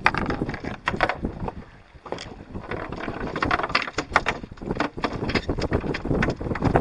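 Wind gusting on the microphone aboard a small boat, with water noise and scattered knocks and clatters of handling. It eases briefly about two seconds in.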